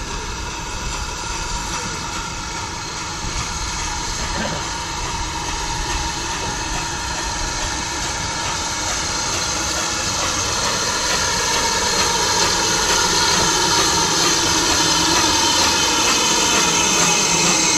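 BR Standard Class 2 steam locomotive 78019 drifting into the platform with its coaches, a steady hiss with several high held tones that grows louder as it draws near.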